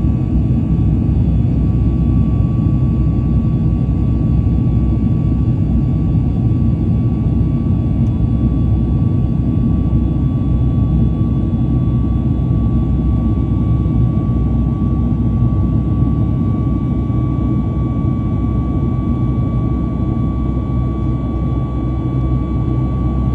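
Steady jet engine and airflow noise of a Boeing 737 heard from inside the passenger cabin, with a thin, steady whine above the low noise.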